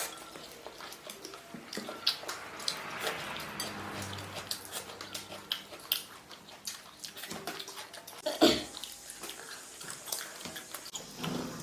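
Eating sounds: chewing, with scattered light clicks and knocks of utensils against a bowl and a louder knock about eight and a half seconds in.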